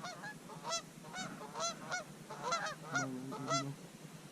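A flock of geese honking overhead, many short overlapping calls several times a second.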